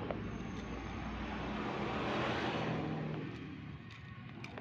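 A motor vehicle passing on the road, its noise swelling about two seconds in and then fading away. A few faint sharp clicks follow near the end.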